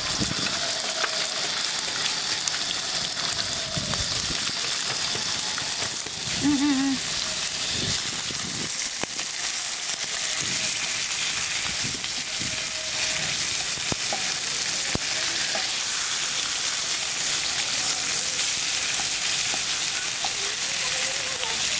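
Whole masala-coated pomfret sizzling steadily as they shallow-fry in hot oil in a pan. A wooden spatula knocks and scrapes against the pan now and then as the fish are moved.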